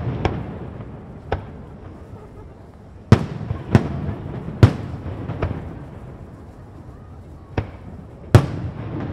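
Aerial fireworks bursting at a display: about eight sharp bangs at uneven intervals, each trailing off in a rumbling echo. The loudest come about three seconds in and again about eight seconds in.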